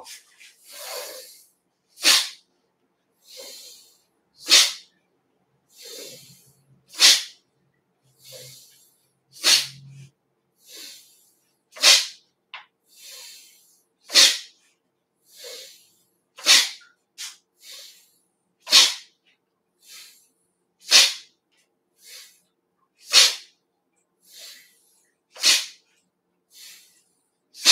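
A person forcing breath out sharply through the nose, about a dozen times at an even pace of one every two seconds or so, with a quieter in-breath between each: the explosive exhale of a Dao Yin qigong exercise.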